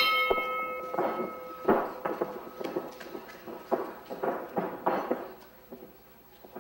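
A single metallic strike right at the start that rings on for about a second. It is followed by irregular knocks and thuds of wrestlers moving on the ring canvas, a few to the second.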